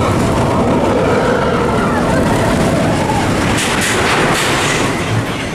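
Steel roller coaster train running along its track, heard from on board: a loud, steady rumble and clatter of the wheels that eases slightly near the end.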